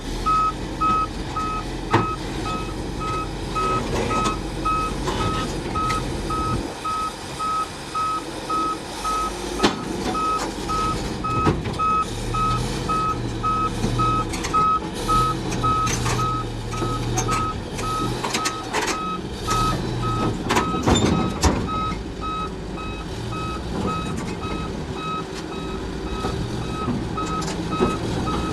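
Backup alarm on heavy equipment beeping steadily about twice a second, over a diesel engine running and scattered sharp metal knocks.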